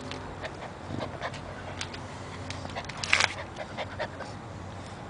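Black chow chow puppy panting close up, with small wet mouth clicks and one louder breathy burst about three seconds in.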